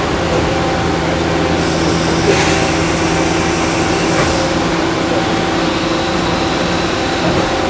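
2013 Makino A51nx CNC horizontal machining center running behind its closed enclosure: a steady machine hum carrying a few steady tones over a noise bed. There is a brief rush of high hiss about two seconds in and a shorter one about four seconds in.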